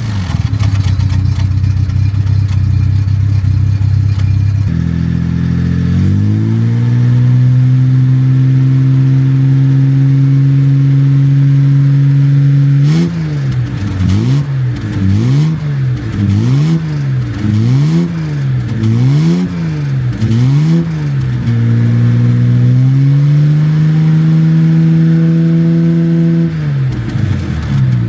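Jaguar MKII's XK straight-six engine running at idle. About 6 s in it rises to a faster idle, then is blipped up and down about seven times in quick succession, then settles and drops back to a lower idle near the end.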